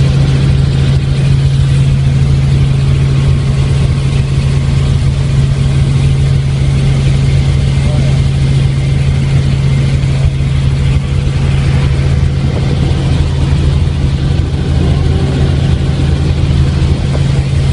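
Helicopter engine and rotor drone heard from inside the cabin in flight: a loud, steady low hum whose pitch holds constant throughout.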